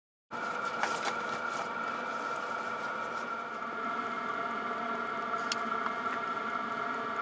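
Steady mechanical hum made of several held tones over a soft noise, starting abruptly after a brief silence, with a few faint clicks.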